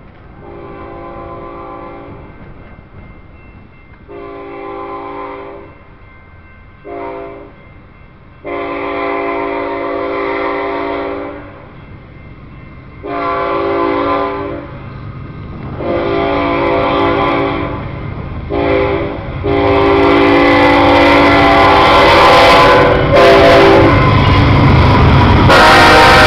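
BNSF freight locomotive's multi-note air horn sounding two long, long, short, long sequences: the standard grade-crossing warning. In the last few seconds the approaching locomotives' diesel engines and wheels grow loud as they pass close by.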